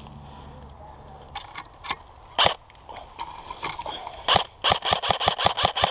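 Airsoft rifle firing a fast string of shots, about six to seven a second, starting a little over four seconds in, after a few scattered sharp cracks earlier on.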